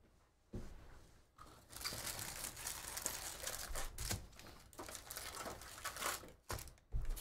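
Plastic-foil wrappers of 2023 Topps Stadium Club baseball card packs crinkling as stacks of packs are pulled out of a hobby box and handled, with a thump near the end as they are set down on the table.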